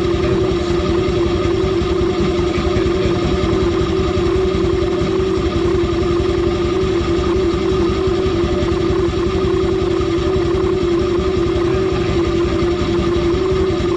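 2021 Honda Dio 110cc single-cylinder four-stroke scooter engine idling steadily at an even pitch, breathing through a modded washable air filter with the filter cover still on.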